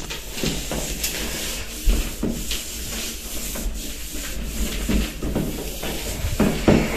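A cloth rubbing over a glass shower screen and the tiled shower wall in quick, irregular wiping strokes, with a couple of louder bumps, one about two seconds in and one near the end.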